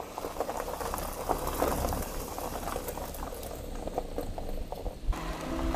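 Liquid bubbling at a boil, a dense run of small pops and crackles. Music with held notes comes in about five seconds in.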